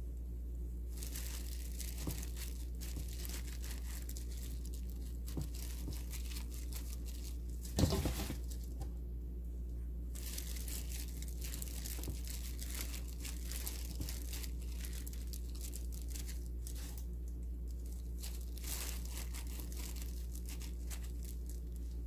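A hand in a plastic glove rustling and crinkling as it presses seasoned chive kimchi down into a glass container, with one sharp knock about eight seconds in. A steady low hum runs underneath.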